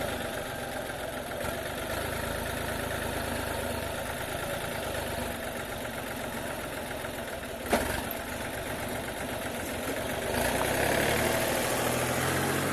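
Tractor engine running steadily, with one sharp knock partway through, then growing louder near the end.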